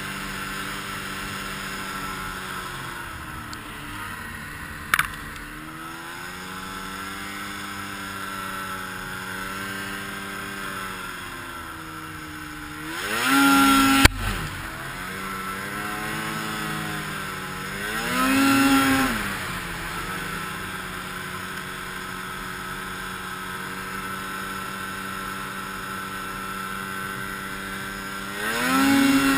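2014 Arctic Cat M6000 snowmobile's 600 cc two-stroke twin running steadily while pushing through deep unbroken snow. It revs up three times, about halfway, about two-thirds of the way through and at the end, each rise falling back. A sharp knock comes a few seconds in, and a louder one at the top of the first rev.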